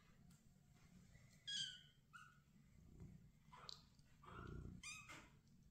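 Tiny kittens mewing to their mother: about five short, high-pitched mews, the loudest one about a second and a half in.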